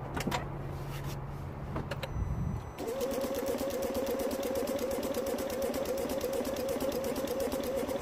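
A Smart Fortwo 451's 1.0-litre three-cylinder petrol engine is turned over by its starter motor from about three seconds in. It churns in a steady, even rhythm for about six seconds without firing, the sign of its crank-no-start fault. Before the cranking there is a steady low hum.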